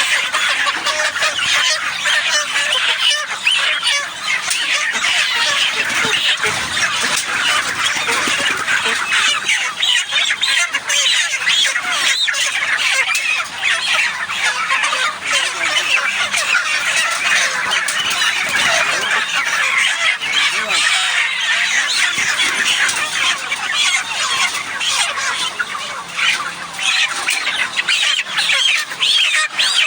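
A flock of young chickens, about five weeks old, calling and clucking all at once in a continuous din of overlapping cheeps.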